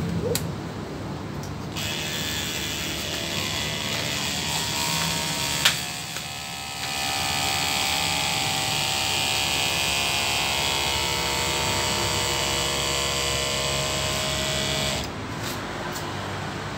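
Small electric pump motor of a battery-powered pesticide sprayer whirring steadily, starting about two seconds in and cutting off near the end. There is a sharp click partway through, and the motor gets louder about seven seconds in.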